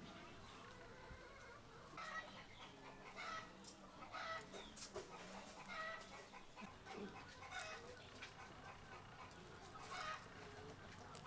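Hens clucking faintly in the background, a string of short repeated calls, with light crackles of boiled quail eggshells being peeled by hand.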